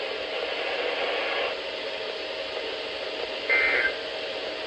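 Weather radio dead air: a steady hiss, then about three and a half seconds in, one short burst of two-tone SAME digital data, the end-of-message code that closes the weekly test.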